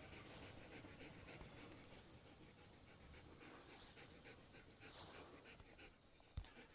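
Dog panting fast and faint, about five breaths a second, with one short knock near the end.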